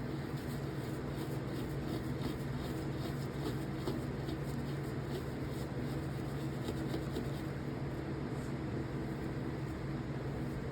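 Steady low mechanical hum, like a fan or air conditioner, with faint rapid scratchy rubbing over it for the first seven seconds or so: steel wool scrubbing rust off a folding knife's pivot.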